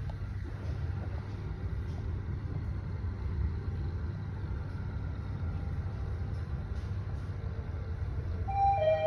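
Mitsubishi Nexway high-speed elevator car travelling upward, its ride noise a steady low rumble. Near the end a two-note falling chime sounds as the car reaches a floor.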